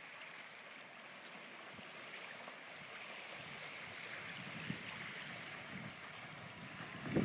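Faint, steady wind and lapping-water noise over open lake water.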